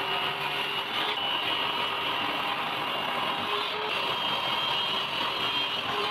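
Table saw running steadily while thin plywood panels are pushed through the blade.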